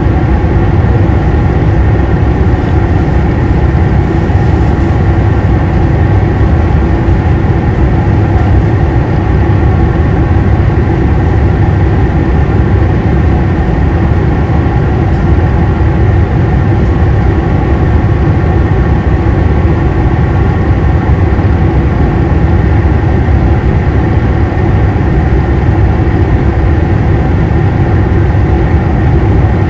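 Diesel engine of a JR Hokkaido KiHa 261 series 5000-subseries railcar, recorded aboard the car, droning steadily at an unchanging pitch with a heavy low rumble.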